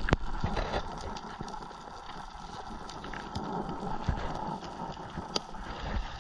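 Underwater ambience heard through a camera's waterproof housing: a low rumble of water movement with scattered sharp clicks throughout.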